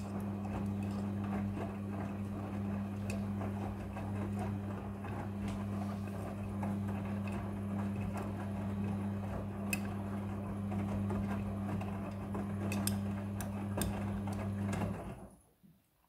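Front-loading washing machine in its wash tumble: the drum motor hums steadily while the wet clothes churn and slosh in the drum, with occasional light clicks. The sound cuts off suddenly about a second before the end as the drum stops.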